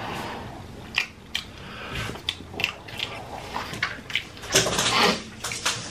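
Close-miked wet chewing and lip-smacking of a mouthful of burger: a run of short, irregular clicks, with a louder noisy stretch a little before the end.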